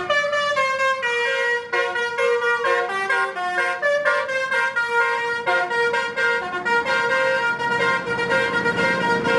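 Basuri musical bus horn (Indonesian 'telolet' horn) playing a fast melody of short stepped notes, several tones sounding at once.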